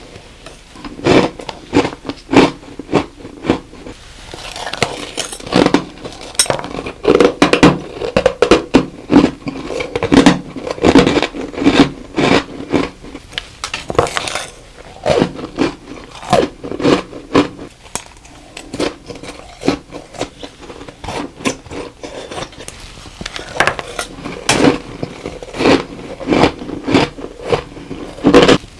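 Close-miked eating of soft, crunchy humidifier-grown frost ice: bites followed by rapid, irregular crunching as the frost is chewed, in clusters with short pauses between mouthfuls.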